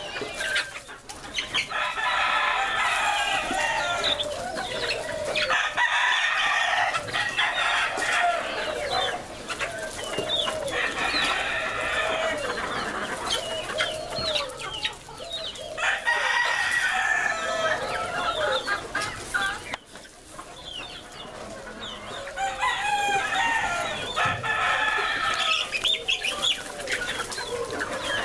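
Flock of chickens clucking and calling throughout, with several rooster crows of about two seconds each.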